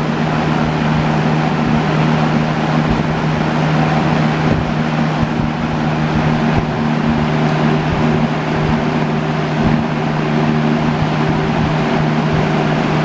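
1970s Hoover Multipurpose box fan with a two-speed McMillan motor running on high speed: a steady motor hum under the rush of air from its blades.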